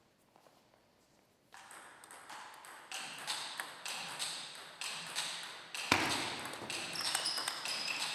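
Table tennis rally: the ball clicks sharply off the rackets and the table in quick alternation. It starts about a second and a half in, with one louder hit about six seconds in.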